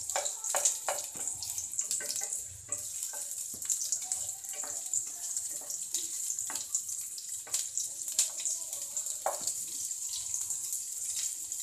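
Sliced onions sizzling in hot oil in a frying pan as they brown, stirred with a wooden spatula that scrapes and knocks against the pan again and again.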